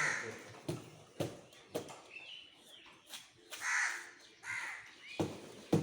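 Crows cawing a few times, harsh calls at the start and again about four seconds in, with sharp knocks of meat being chopped in between.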